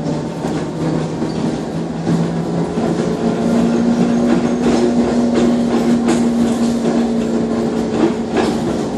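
Trolleybus running along the road, heard from inside: a steady electric motor whine over road rumble and body rattles. The whine steps up in pitch about three seconds in.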